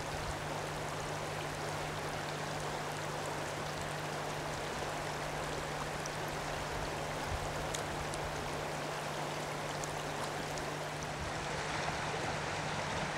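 Shallow river current rushing steadily over stones, an even sound of flowing water.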